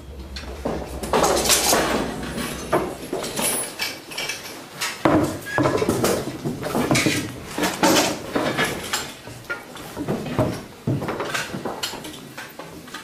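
Steel swords clashing in a choreographed stage fight: a string of irregular metallic clangs and clatter, dying away near the end.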